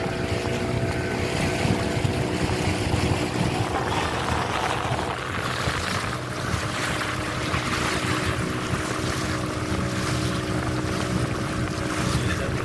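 Motorboat engine running steadily under way, with water rushing and splashing along the hull.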